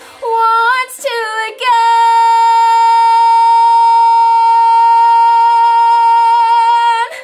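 A teenage girl singing the final phrase of a musical-theatre song, belting. Two short notes come first, then one loud, high note held steady for about five seconds, which cuts off near the end.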